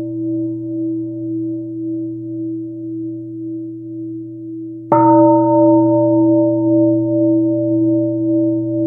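A singing bowl rings with a few steady tones and a slow, wavering swell in loudness. About five seconds in it is struck again: a bright attack whose upper ring dies away within a second or two, leaving the same deep, wavering tone.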